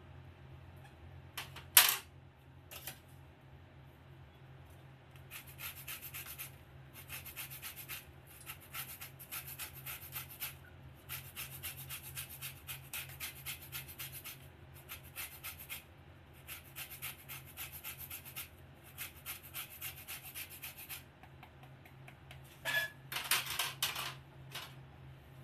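Metal kitchen utensil scraping rapidly against a bowl in bursts of a second or two, with a sharp knock about two seconds in and a few clinks near the end. A faint steady hum runs underneath.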